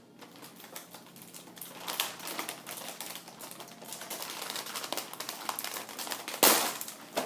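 Plastic Oreo cookie package being handled and opened: irregular crinkling and clicking of the wrapper, with one loud rip a little before the end.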